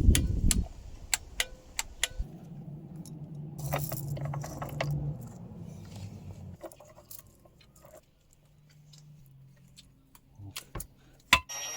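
Scattered metallic clicks and clinks, like tools or parts being handled, with a low steady hum for a few seconds in the first half.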